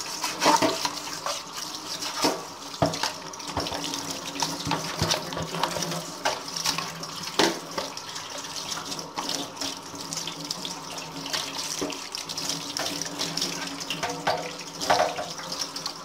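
Tap water running onto a plastic vacuum-cleaner floor nozzle in a stainless steel sink while it is scrubbed with an old toothbrush, with many short clicks and knocks of the plastic being handled against the sink.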